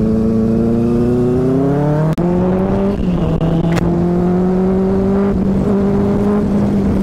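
Motorcycle engine accelerating, its pitch rising for about two seconds. Then a quick upshift with a brief cut in sound, after which it pulls on at a lower, slowly rising pitch.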